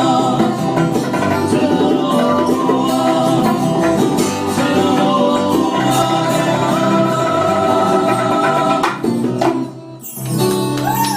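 Music with singing, breaking off about nine seconds in, after which sliding, swooping tones start.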